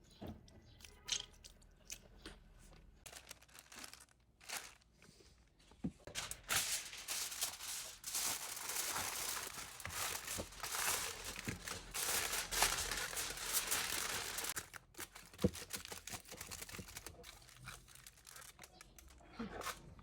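Hands tearing and crinkling something during food preparation: scattered crackles and clicks, with a denser, louder stretch of continuous crinkling in the middle.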